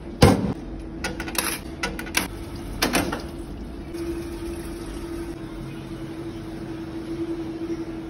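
Coin laundry machines giving a steady low hum, with a few sharp knocks and clicks over it. The loudest knock comes just after the start, and smaller ones follow in the next three seconds.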